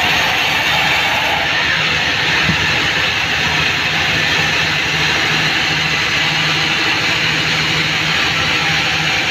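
Band sawmill running, its blade ripping lengthwise through a mahogany log: a loud, steady machine noise with a low hum underneath that strengthens about two seconds in.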